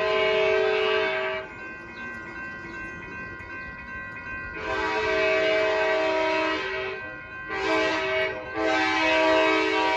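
Approaching train's horn blowing the grade-crossing signal in long, chord-like blasts: the end of one long blast, then a long, a short and a final long. The crossing's electronic bells ring steadily in the gaps between blasts.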